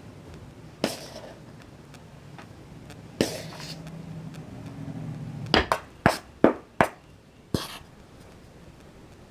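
A series of sharp, crisp crunches, spaced out at first, then five in quick succession a little past the middle, with a faint low hum under the middle stretch.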